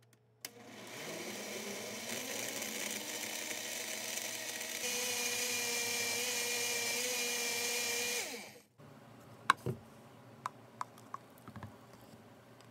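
Countertop blender switched on with a click, its motor spinning up and running steadily as it blends strawberries and milk into a smoothie. It gets louder about halfway through, then is switched off and winds down. A few light clicks and knocks follow.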